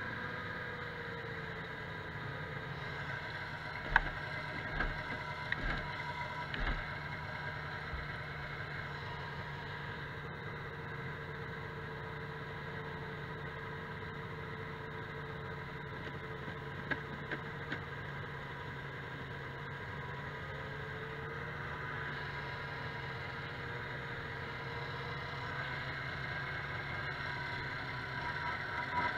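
Vintage 340 cc two-stroke snowmobile engines idling steadily while waiting at the start line, with a few short knocks a few seconds in.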